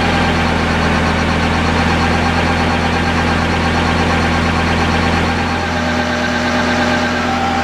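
Kubota B7100 tractor's diesel engine running steadily at PTO speed, driving a NorthStar PTO generator under electrical load: a constant low drone with no change in speed.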